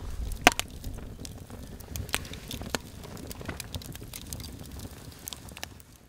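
Wood bonfire crackling and popping in irregular sharp snaps, with one loud pop about half a second in, over a low rumble. The sound fades out at the very end.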